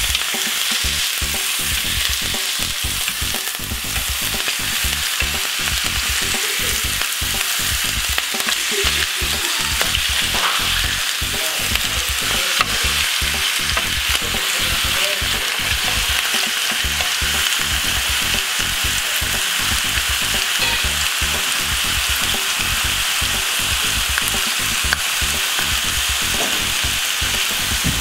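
Beef burger patties and bacon strips sizzling steadily in a hot oiled grill pan, with a few sharper pops and crackles from the fat.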